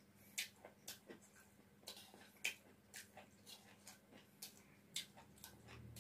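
Close-miked eating sounds: a string of short, irregular wet clicks and smacks from chewing mouthfuls of fried rice, with a steel spoon scraping the steel plate, the loudest click about halfway through.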